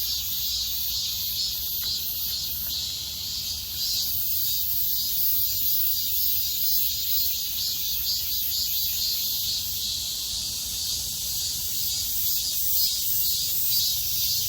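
Cicadas singing in chorus: a dense, steady, shrill buzz with a faint rapid pulsing running through it.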